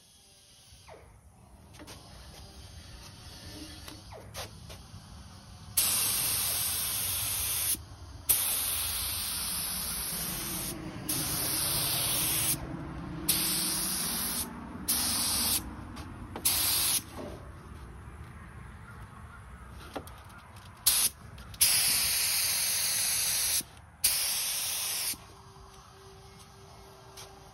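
Gravity-feed spray gun on a compressed-air hose spraying epoxy primer in a series of trigger pulls: about ten loud bursts of hiss, each lasting up to two and a half seconds and starting and stopping abruptly, beginning about six seconds in.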